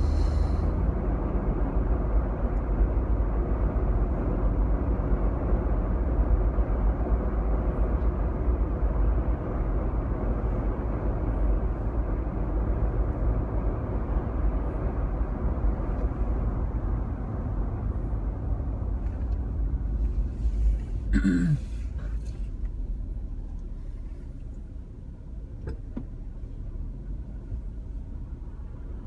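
Car driving on a city street: steady low road and engine rumble, growing quieter in the last several seconds. A brief falling sound about three-quarters of the way through.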